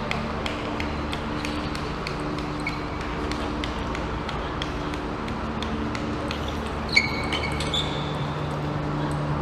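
Hall ambience at a table tennis match between points: a steady low hum and murmur with scattered faint clicks, and a brief high squeak about seven seconds in.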